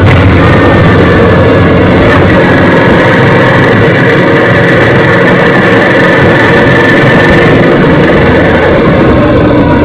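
Motorcycle engine running on the move, heard together with heavy wind rush on the microphone, loud and steady, with a faint whine that edges slowly upward in pitch.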